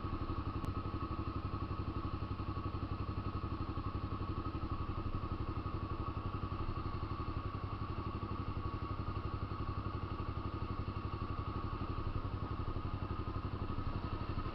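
Honda CB 300's single-cylinder engine idling steadily in neutral through an aftermarket Fortuna mini sport exhaust, an even, fast pulsing exhaust note.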